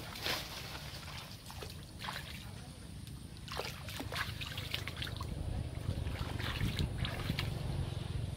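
Shallow muddy water splashing and sloshing as a person wades barefoot through it and dips a hand in, in a string of short, irregular splashes over a steady low rumble.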